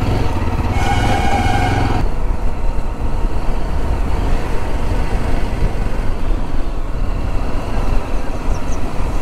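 Motorcycle on the move, a steady low engine-and-road rumble, with a held pitched tone for about a second near the start.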